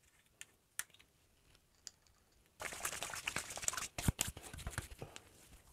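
A few light clicks as the screw cap of an aftershave splash bottle is twisted open. About two and a half seconds in comes a crackly stretch of wet rubbing and patting as the splash is worked onto the face with both hands, with a couple of firmer slaps near the middle of it.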